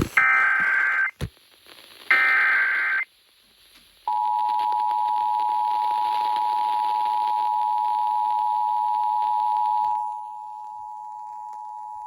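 Emergency Alert System tornado warning opening: two short bursts of the digital SAME header, then after a pause of about a second the steady two-tone EAS attention signal begins about four seconds in and gets quieter about ten seconds in.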